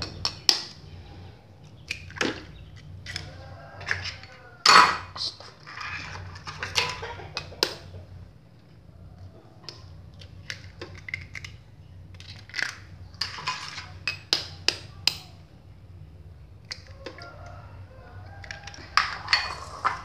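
Eggs being cracked one by one into a plastic mixer bowl: scattered sharp taps, cracks and clinks of shell and a metal spoon. The loudest knock comes about five seconds in.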